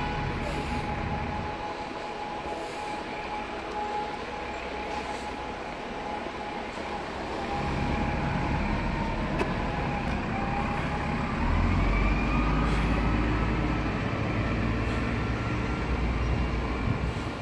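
Road traffic noise on a town street: a continuous hum of vehicles with a deep rumble that swells about halfway through and eases off near the end.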